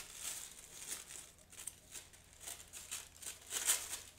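Thin collage paper being torn and crinkled by hand, in a series of short, irregular ripping and rustling sounds.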